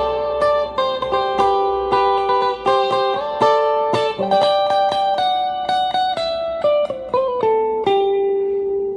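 Fender Duo-Sonic HS electric guitar played through an amp with a clean tone and a little reverb: a melodic run of single picked notes that ends on a held, ringing note near the end.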